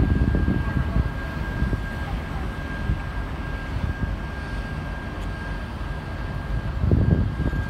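Departing passenger train hauled by a TEP70BS diesel locomotive: coaches rolling slowly past on the rails with a low, uneven rumble that swells near the start and again near the end, over the distant running of the locomotive. A thin steady high whine runs beneath it.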